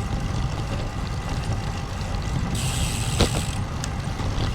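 Strong wind buffeting the microphone together with tyre rumble from a road bike riding along a paved trail, a steady low rush. About halfway through, a brief higher hiss lasts for about a second.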